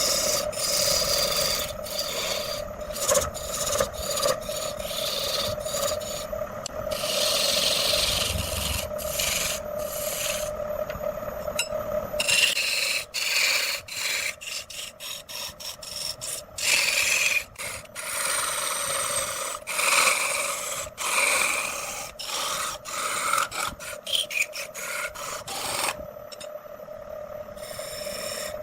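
Wood lathe running with a steady hum while a turning tool scrapes and cuts the spinning wooden workpiece. The scraping comes and goes in irregular stretches with many brief breaks.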